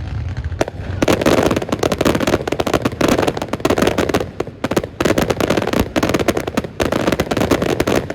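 Fireworks going off: a low boom, then from about a second in a dense, rapid crackle of many sharp pops in close volleys for several seconds, typical of crackling-star shells.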